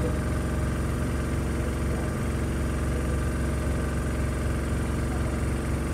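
Fukui Railway RETRAM tram heard from inside its cab: a steady hum of its motors and running gear as it moves slowly along the street track.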